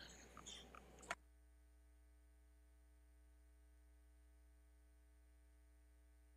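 Near silence: faint room tone with a few soft clicks in the first second and a sharper click about a second in, then dead quiet.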